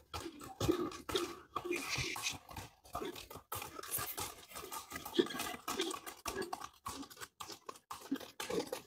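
Hooves of a ridden horse striking a dusty, gritty street as it trots and prances: a run of short, irregular strikes.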